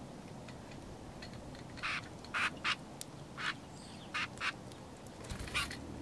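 Small songbirds at a seed feeder giving short, harsh chirps, about eight scattered through the middle and end, several in quick pairs.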